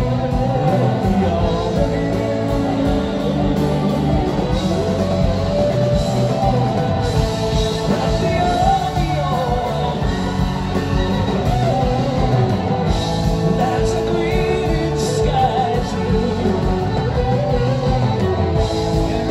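Live rock band playing an instrumental stretch of a song: electric guitars, bass guitar, drums and keyboards together, heard from the audience.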